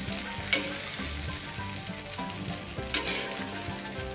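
Bacon-wrapped spring rolls sizzling and crackling on the hot grate of a kamado charcoal grill, with a couple of sharp clicks of metal tongs against the grate as the rolls are lifted off.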